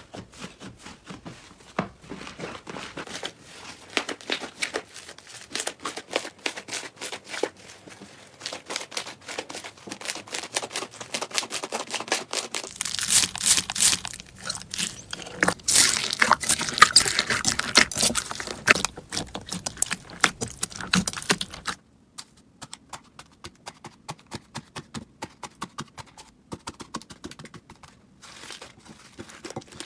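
Slime being squished and pressed by hand: a dense run of sticky crackling and clicking. The texture changes abruptly twice, and the middle stretch is the loudest.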